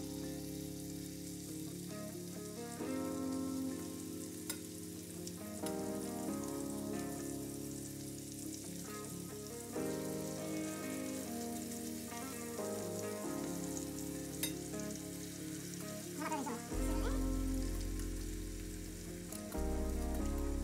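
Food frying in a hot sauté pan, a steady sizzle with scattered crackles, under background music of held chords that change every few seconds.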